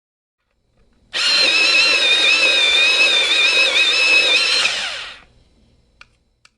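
Electric pencil sharpener running with a pencil in it, a steady whine for about four seconds before it winds down, followed by two faint clicks.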